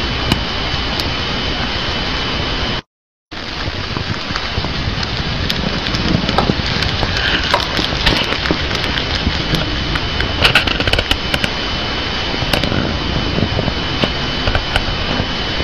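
Steady loud hiss with a thin high whine, over which a hamster chewing a leaf of bok choy makes scattered crackling clicks. The sound cuts out completely for about half a second near three seconds in.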